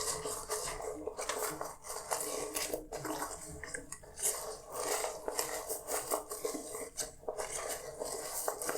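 Dishes and cutlery clinking and clattering while being washed, a continuous run of small knocks and scrapes.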